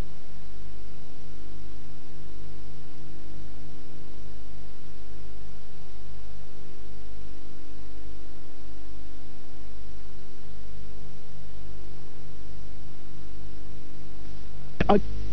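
Steady electrical hum: a low drone with several steady tones above it, holding an even level. Near the end a brief crackle breaks in, and the hum grows fuller after it.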